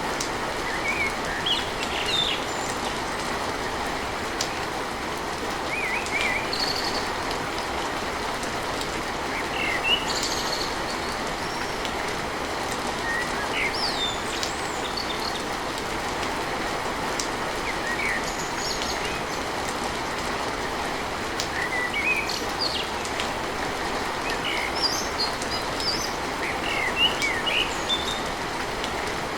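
Steady rain falling on a tin roof, with birds chirping in short calls at intervals throughout.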